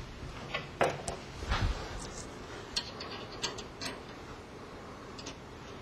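Light metal clicks and taps at uneven spacing, about ten in all and the strongest about a second in, as the guide foot is set in place on a band resaw's blade guide.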